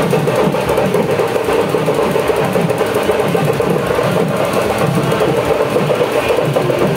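Loud music with steady, fast drumming.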